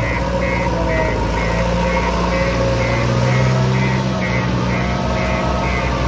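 A JCB 3DX backhoe loader's diesel engine runs while its pitch shifts as the machine works. A reversing alarm beeps steadily about twice a second.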